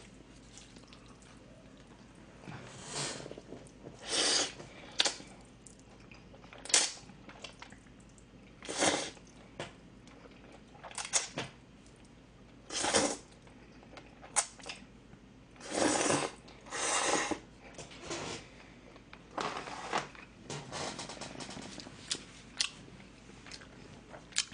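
A person slurping and eating black-bean-sauce noodles (gan-jjajang) with chopsticks: about a dozen short, loud, noisy slurps at irregular intervals, with quieter chewing between them.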